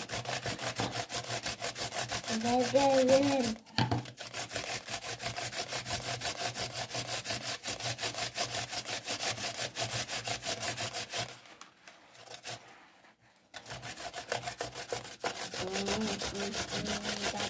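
Radish being grated by hand on a grater: quick, even rasping strokes, about four a second. The grating stops briefly about four seconds in and again for a couple of seconds past the middle.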